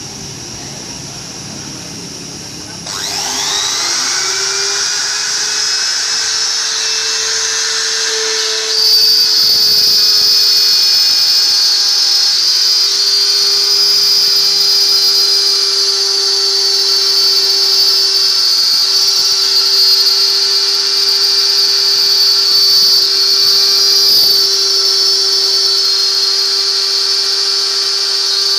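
A CNC router spindle starts up about three seconds in, its whine rising in pitch and settling into a steady tone. About six seconds later it turns louder, with a strong high-pitched whine and hiss that then runs on steadily.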